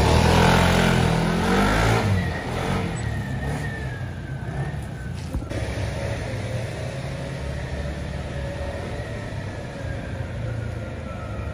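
Yamaha NMAX scooter's single-cylinder engine with an aftermarket Daytona exhaust pulling away under throttle. It is loudest in the first two seconds, then settles into a steadier engine note with a high whine slowly falling in pitch. The CVT is running a mix of 10 g and 13 g roller weights.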